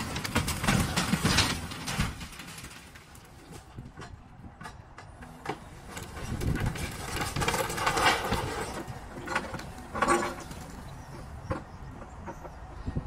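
Wooden boards and corrugated sheet metal from a demolished shed crashing and clattering as they tumble down a steep rocky slope. The clatter comes in bursts: heavily at the start, again in the middle and once more about ten seconds in, over the low running of an excavator.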